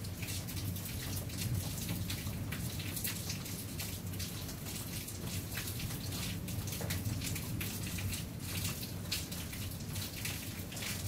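Steady rain, with many separate drops ticking sharply on a nearby surface over a low steady background rumble.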